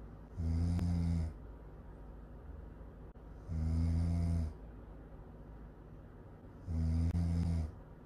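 A sleeping woman snoring: three loud snores, each about a second long, coming about every three seconds in an even rhythm.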